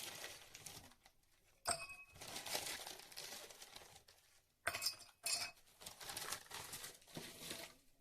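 Glassware clinking: three sharp clinks with a brief ring, about two seconds in and twice more around the middle, among stretches of rustling handling noise.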